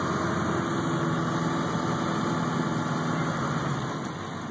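Car engine running with road noise, steady, getting a little quieter about four seconds in.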